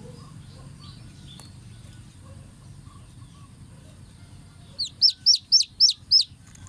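Baby chicks peeping: faint scattered peeps, then near the end a run of about six loud, high peeps, each sliding down in pitch, about four a second.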